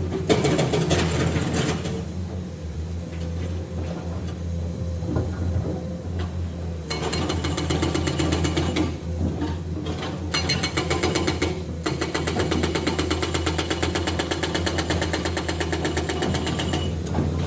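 Heavy diesel engine running steadily, with a fast, even mechanical clatter joining in about seven seconds in.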